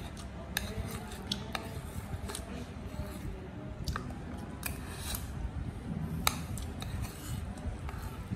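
Spoon clicking and scraping against a ceramic plate while scooping rice, in irregular sharp clinks, the loudest about six seconds in.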